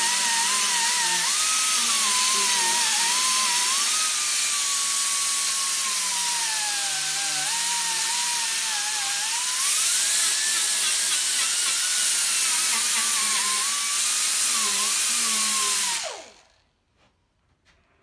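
Small right-angle grinder with a worn 36-grit sanding disc grinding down body filler on a truck dash: a loud steady hiss with a whine that sags and rises as the disc is pressed and eased. About sixteen seconds in the tool is released, and the whine falls as it spins down and stops.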